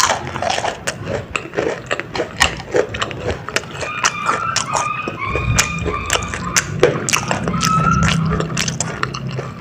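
Close-miked chewing of a fried corn dog: a dense run of crunches, wet clicks and mouth noises. A faint wavering tone sounds over the chewing through the middle.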